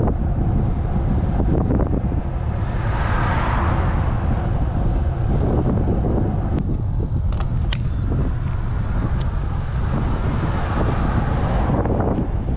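Wind buffeting a handlebar-mounted camera's microphone on a moving road bike, with a steady low rumble of road noise. A louder swell of noise rises and fades about three to four seconds in.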